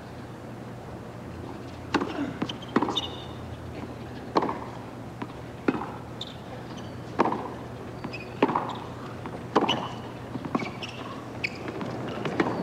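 Tennis rally on a hard court: sharp pops of a tennis ball struck by rackets and bouncing, starting about two seconds in and coming roughly once a second, over a low steady crowd background.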